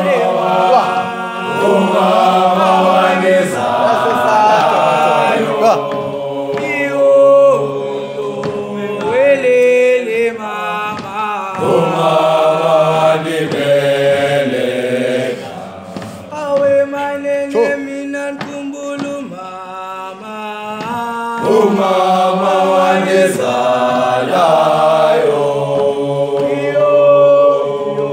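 A group of young male voices singing a cappella in harmony, a chant-like choral song in several parts with no instruments.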